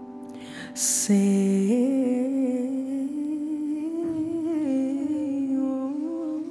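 Wordless vocalising: a singer hums a long, wavering melodic line that steps up in pitch and holds, over a fading piano chord. A short hiss comes just before the voice enters, about a second in.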